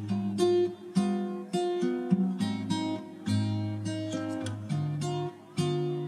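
Background music: acoustic guitar chords and single notes, each plucked or strummed attack fading before the next.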